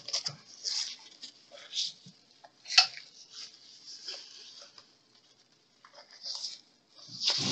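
Thin foam packing sheet rustling and crinkling in short irregular bursts as it is wrapped and pressed around an object by hand. The sheet falls quiet for about a second about five seconds in.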